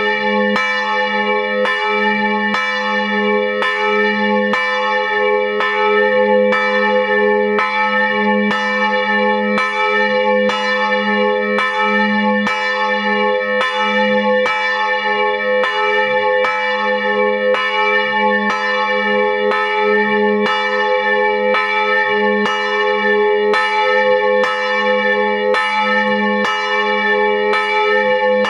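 Bronze church bell swinging in full peal, its clapper striking about once a second. The bell's deep ringing carries on between strikes.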